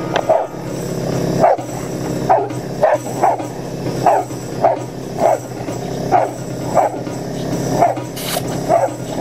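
Two boxer dogs barking excitedly in a steady run, about one bark every half second to second, at an air-compressor blow gun held in front of them, over a steady low hum.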